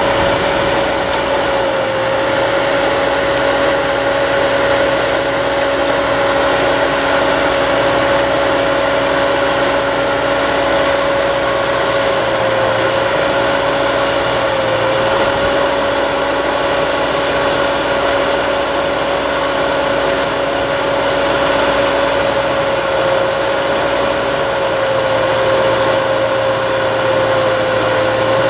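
Tractor engine running at a steady speed, with a steady whining tone over it.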